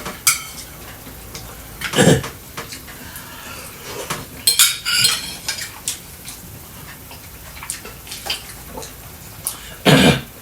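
Cutlery clinking against plates and dishes during a meal: a few scattered sharp clinks, some ringing briefly, the loudest about two seconds in, around four and a half to five seconds in, and near the end.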